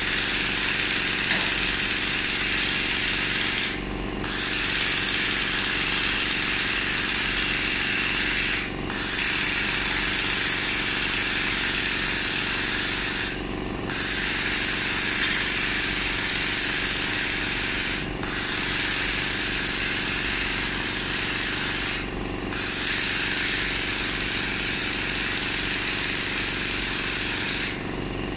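YAG laser welding machine running: a steady hiss over a low hum. The hiss cuts out for about half a second roughly every four to five seconds, then comes straight back.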